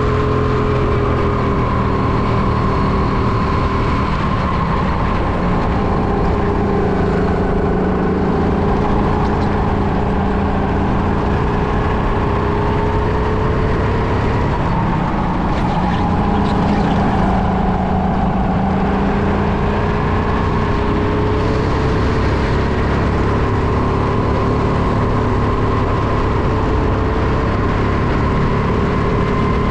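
Go-kart engine running hard on a lap, heard from the driver's helmet. Its pitch drops and climbs again several times as the kart slows for the bends and accelerates out of them, over steady wind and road noise.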